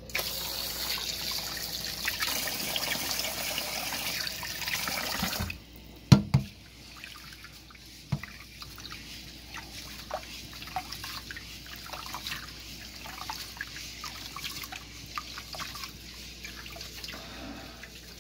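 Kitchen tap running into a pot of rice being washed, shut off abruptly about five and a half seconds in. A sharp knock follows, with a smaller one about two seconds later, then a hand swishes and rubs the rice in the rinse water with small splashes and drips.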